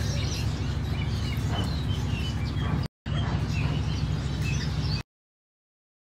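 Many short, high bird chirps and tweets from a mix of caged birds over a steady low hum, with a brief dropout just before three seconds; the sound cuts off to silence about five seconds in.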